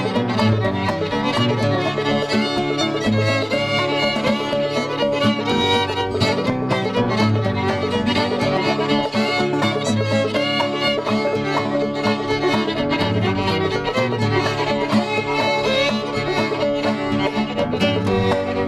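Instrumental background music playing continuously at a steady level.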